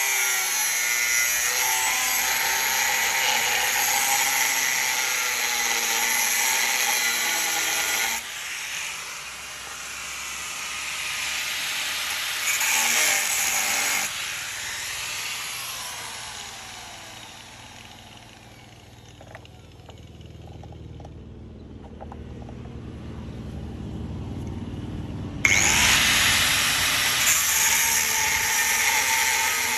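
Power tools working steel: a steady, pitched machine whine, broken by abrupt cuts into several short clips, with a quieter stretch in the middle holding a few light clicks.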